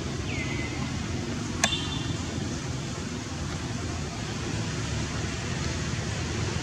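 Steady outdoor background noise with a low rumble. A brief falling chirp comes near the start, and a single sharp click about a second and a half in.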